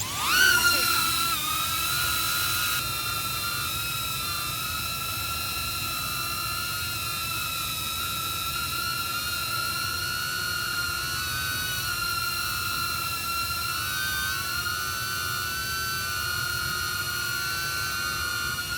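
DJI Neo mini drone's motors spinning Gemfan D51 four-bladed propellers: a high-pitched whine that rises as they spin up, then holds steady in a hover. The pitch wavers a little about fourteen seconds in.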